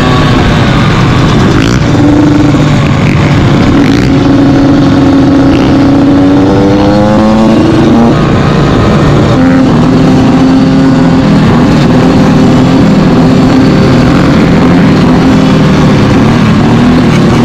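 Several dirt bike and ATV engines running and revving loudly together. One climbs steadily in pitch as it accelerates about halfway through, and the engine mix changes abruptly a few times.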